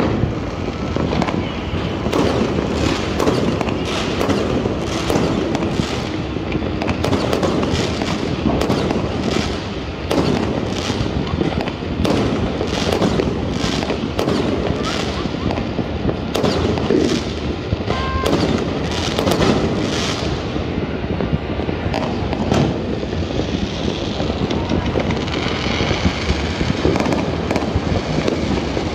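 Many fireworks going off at once across a city: a continuous din of distant bangs with a rapid run of sharp cracks, thinning out after about twenty seconds.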